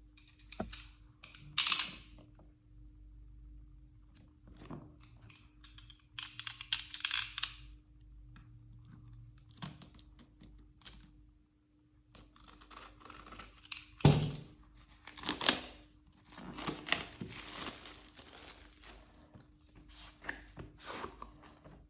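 Smartphone retail box and its packaging being handled and opened: plastic film tearing and crinkling, cardboard rustling, and light clicks and taps, with one sharp knock about two-thirds of the way through. A faint steady hum runs underneath.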